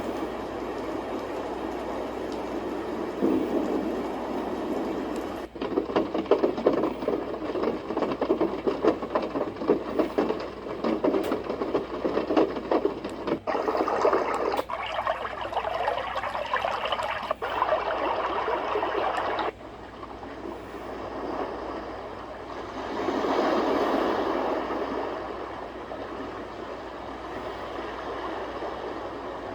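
Sound machine playing a series of its built-in ambient noise tracks: rushing, water- or rumble-like noise that cuts abruptly from one sound to the next four times, about 5, 13, 15 and 19 seconds in, as the setting is changed.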